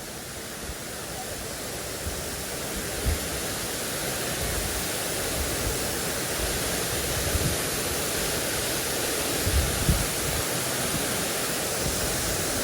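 Steady rushing of a waterfall, growing louder over the first few seconds, with a few brief low bumps.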